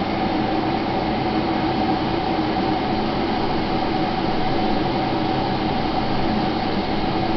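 Redmond RK-G152 glass electric kettle heating a litre of water, with the steady rushing rumble of water starting to boil around the heating element.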